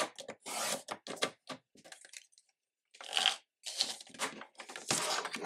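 Cardstock being cut on a sliding-blade paper trimmer and handled on its base: a series of short, dry scraping sounds as the blade carriage runs along the rail and the card is shifted.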